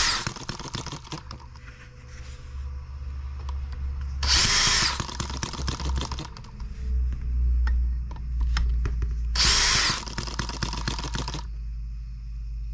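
A DeWalt cordless drill spins a scale-model Atkinson engine over in short starting attempts, in two bursts about four and nine seconds in. Between the spins the engine's exposed mechanism makes rapid clicking and clattering; it has not yet settled into running on its own.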